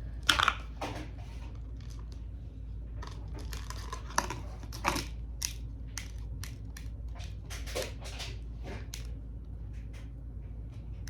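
Hands working crinkly material, with irregular crackling and crinkling and a few sharp clicks.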